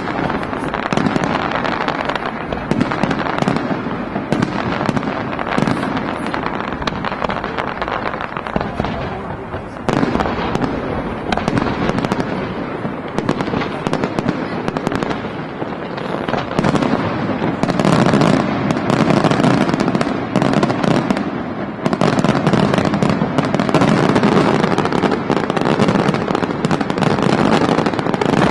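Aerial firework shells bursting in a dense, continuous barrage of bangs and crackles, growing louder in the last third.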